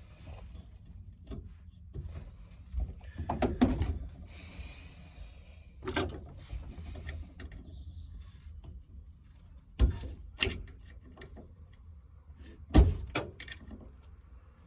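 Irregular knocks and clunks of tools and parts being handled on a workbench, with a brief rasping scrape about four seconds in; the loudest knocks come near ten and thirteen seconds in.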